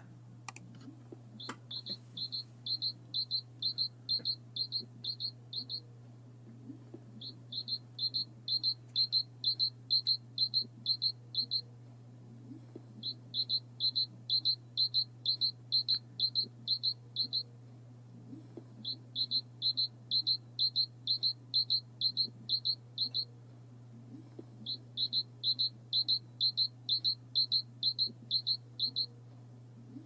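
Great tit singing: quick high notes repeated about three times a second, in five phrases of four to five seconds each, with short pauses between them.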